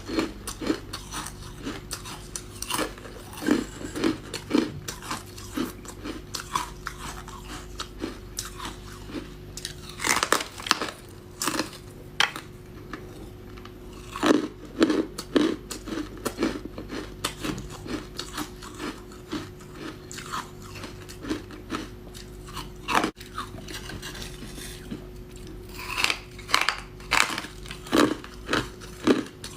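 Ice being bitten and chewed close to the microphone: irregular crisp crunches, with louder bursts of bites about a third of the way in, around the middle and near the end. A faint steady hum runs underneath.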